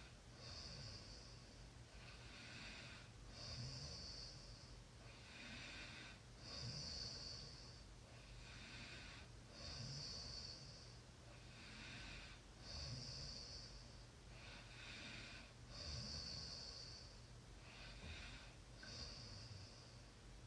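A sleeping person snoring faintly and evenly. About one breath every three seconds, each with a hissy, whistling part and a low rumbling snore.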